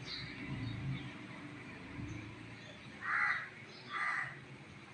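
A crow cawing twice in quick succession, two short harsh calls about three seconds in.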